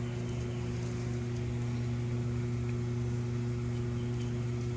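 Steady low machine hum with a few even tones, unchanging throughout.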